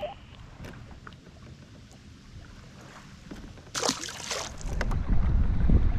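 Movement and handling noise aboard a fishing kayak: quiet for a few seconds, then a short burst of noise about four seconds in, followed by loud low rumbling near the end.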